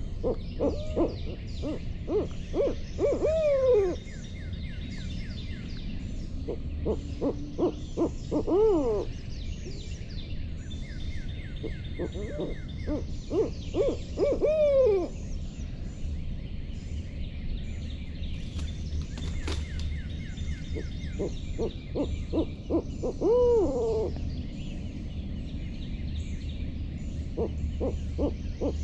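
Owl hooting in about five bursts: quick runs of hoots, several ending in a long drawn-out falling note. Faint higher chirping runs underneath.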